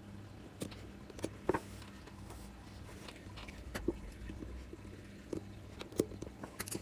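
Scattered light clicks and taps of small brake master cylinder parts being handled and fitted together during reassembly, over a steady low hum.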